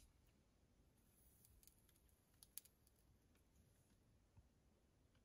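Near silence: quiet room tone with a few faint, sharp high ticks about one to three seconds in.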